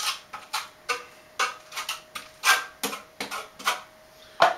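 Steel notched trowel scraping and clicking against a tile while spreading pre-mixed acrylic tile mastic on its back: a dozen or so short, irregular scrapes and knocks, the loudest near the end.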